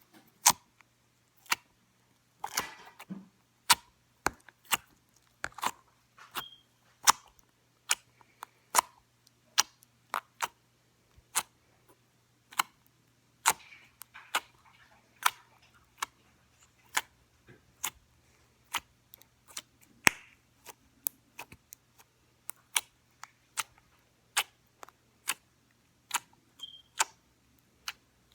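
Slime being poked with a finger, each poke giving a sharp click or pop, about one to two a second in an uneven rhythm, with a couple of longer squishy sounds.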